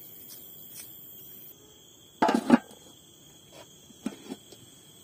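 A metal lid set down on a cooking pot: a loud double clatter about two seconds in, then a few lighter knocks as it is settled into place.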